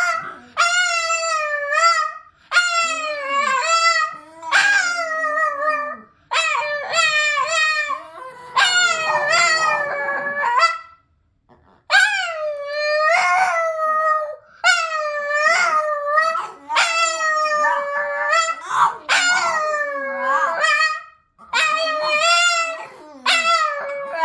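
A Boston terrier howling: a long run of drawn-out howls, each a second or two long and wavering in pitch, with short breaks between them and a brief pause about halfway through.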